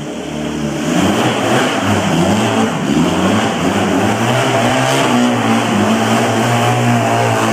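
Barossa Apache 250 cc engine revving up and down, then running steadily at higher revs.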